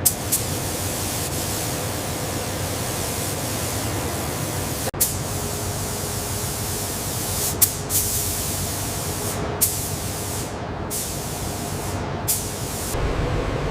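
Steady hissing noise, broken by several sharp clicks and a few brief dropouts. Near the end it changes to a fuller, deeper rush.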